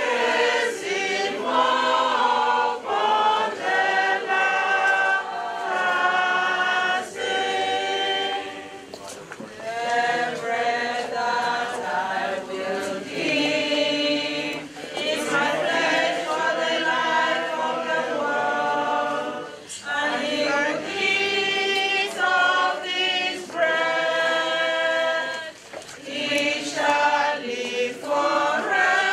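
A group of voices singing together in chorus, with held notes that change pitch every second or so.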